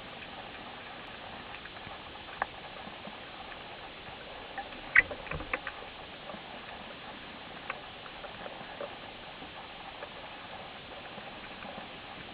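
Underwater sea ambience picked up by a diving camera: a steady hiss with scattered sharp clicks and crackles, and a brief cluster of louder clicks about five seconds in.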